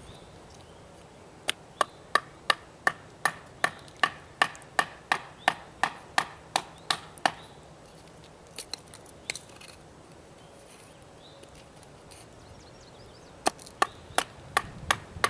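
A wooden baton knocking on the spine of a Habilis Bush Tools Trapper knife to drive it through a stick of wood: a steady run of sharp knocks, about three a second, then after a pause a second, quicker run of strikes near the end.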